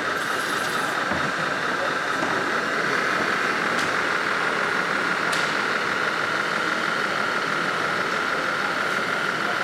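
Radio-controlled model heavy-haul truck driving slowly with a steady engine-like running sound and a constant high whine. Two faint ticks come in the middle.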